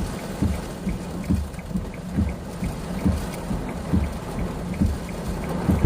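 Heavy rain and wind in a violent storm, with regular low thumps about twice a second and a faint, fast, even ticking.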